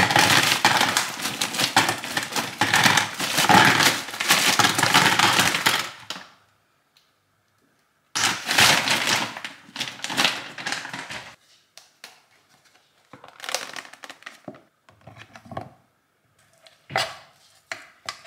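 A plastic pouch of dog-food nuggets crinkling and rustling as the nuggets are tipped into a plastic tub, with a second burst of pouch rustling about halfway through. Near the end, short clinks and scrapes of a metal spoon moving the food into a plastic slow-feeder bowl.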